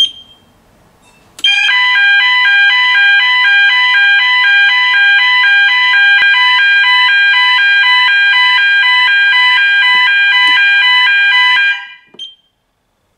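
Hotel fire alarm sounders going off with a loud electronic alarm of several rapidly stepping tones, triggered by test smoke at a detector: the repaired system works. The alarm starts about a second and a half in after a brief beep and cuts off suddenly near the end.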